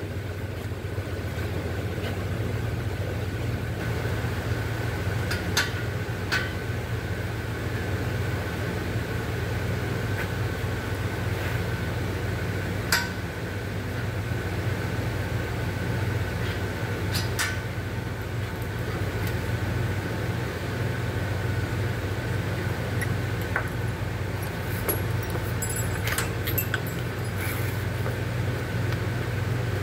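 Steady low machine hum with a faint high whine, broken by a few sharp metallic clinks and taps of tools on metal.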